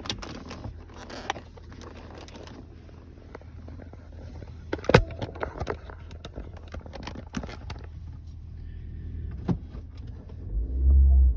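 Ford Grand C-Max heard from inside, running with a steady low hum and scattered clicks and knocks. About ten and a half seconds in, a loud low drone comes in, which fits the whoop the owner reports when the car pulls away.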